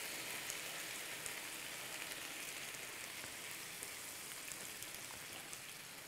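Sausages, onions and gravy sizzling in a frying pan as the liquid goes in, a steady hiss with small scattered pops that slowly eases off.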